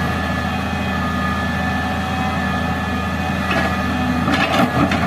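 Heavy diesel engine running steadily, with a few short clattering sounds about three and a half seconds in and again near the end.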